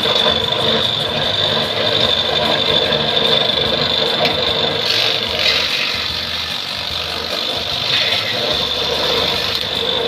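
Homemade electric grass chopper running: an electric motor spinning a round steel disc with two blades through a pulley and belt, a steady hum with a high whine, with a few brief scratchy bursts midway.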